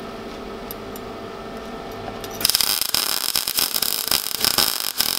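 Steady low hum, then about two and a half seconds in a MIG welder's arc strikes and runs with a continuous crackling sizzle as a crack in a steel brick trowel is welded.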